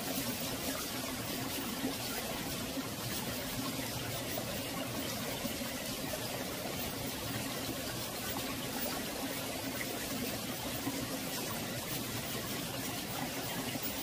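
Mountain valley stream flowing steadily, a continuous even burble of running water.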